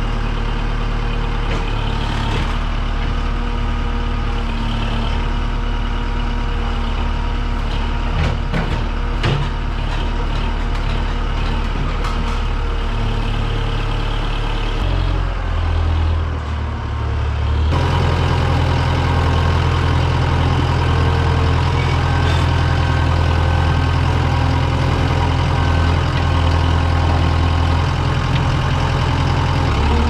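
Kubota tractor's diesel engine running steadily while it works a front-end loader with a grapple bucket, with a few knocks about eight to nine seconds in. About two-thirds through, the engine becomes louder and closer, heard from on the tractor itself.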